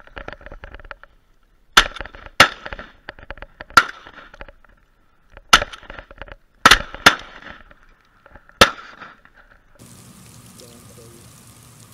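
Duck hunters' shotguns firing seven sharp shots over about seven seconds, several in quick pairs, at mallards passing overhead. Near the end the shooting gives way to a steady hiss of rain.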